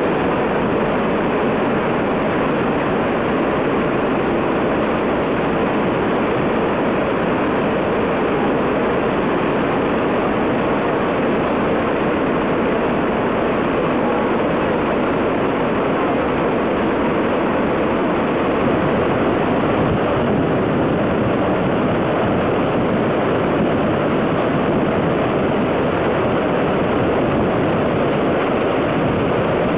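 Floodwaters of the South Esk River rushing through Cataract Gorge: a loud, steady roar of white water that does not rise or fall.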